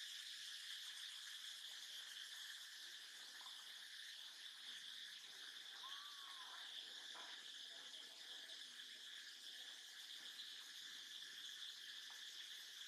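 Faint, steady high-pitched drone of insects in the forest, with a brief faint squeak about six seconds in.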